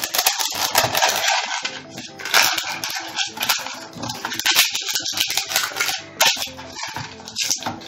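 Parchment paper crinkling and rustling in irregular crackles as it is pressed and smoothed into the bottom of a round metal cake tin.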